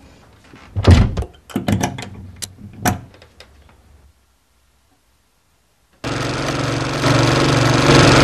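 A run of sharp metallic clicks and knocks, the loudest a heavy thunk about a second in, as end-cutting pincers work at a screw-eye hasp on a door frame. After a few seconds of silence, a Singer sewing machine starts suddenly about six seconds in and runs at a steady speed, stitching.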